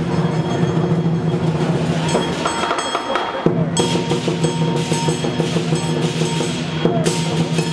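Lion dance percussion: a large Chinese drum beaten in a fast rhythm with clashing cymbals, the metal ringing on between the strikes.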